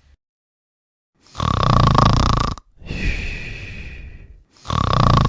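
A man snoring: two loud snoring inhales about three seconds apart, with a quieter breathy exhale between them. It starts about a second in.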